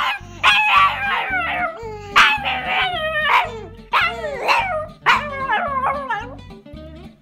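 Chihuahua howling and yipping: a string of short, high calls, each sliding down in pitch, about two a second.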